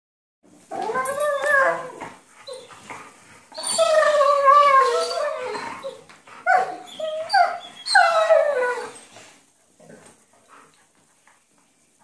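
Weimaraners play-fighting, making drawn-out whining, howl-like play vocalizations: about five calls that mostly fall in pitch, the longest over two seconds. They die down to faint short sounds in the last few seconds.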